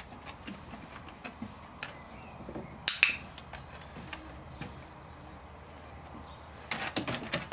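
Sharp clicks and clinks: a close pair about three seconds in, and a quick run of them near the end.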